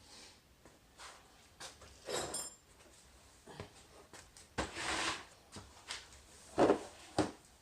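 Hand tools working on a motorcycle's seized front brake: scattered metal clinks and handling noises, a short ringing clink about two seconds in, a brief scraping rasp midway, and two sharp knocks near the end.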